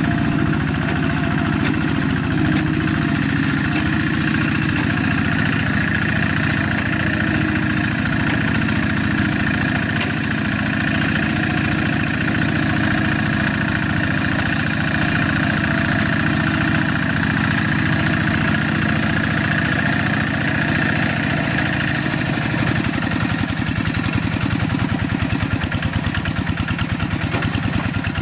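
Single-cylinder diesel engine of a two-wheel hand tractor running steadily under load as it works a muddy rice paddy, with a fast even chugging beat. About three-quarters of the way in the engine note changes and the beat becomes more pronounced.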